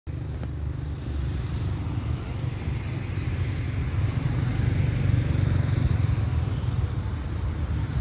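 Low, steady rumble of a distant diesel locomotive engine as the train approaches, growing a little louder over the first few seconds.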